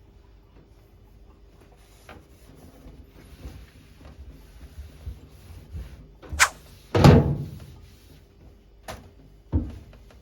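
A few knocks and bangs over a low steady hum. The loudest is a heavy thud about seven seconds in, just after a sharp knock, and two smaller knocks follow near the end.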